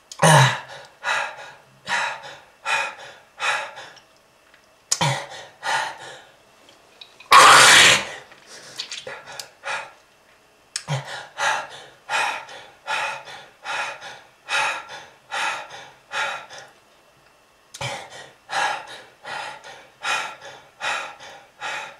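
A smoker's harsh coughing fit: short sharp coughs in quick runs, about one and a half to two a second. A longer, louder hacking cough comes about seven seconds in, and there are brief pauses around ten and seventeen seconds.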